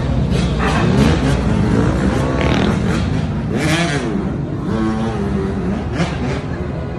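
Motorcycle engines running and revving close by: a steady low rumble with revs rising and falling several times.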